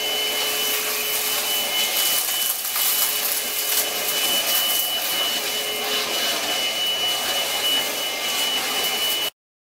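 Morphy Richards SuperVac 2-in-1 cordless stick vacuum cleaner running steadily, its motor giving a high whine over the rush of air. It stops abruptly near the end.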